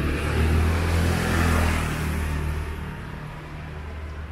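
A motor vehicle passing close by on the street. Its engine hum and tyre noise swell about a second in, then fade over the next two seconds.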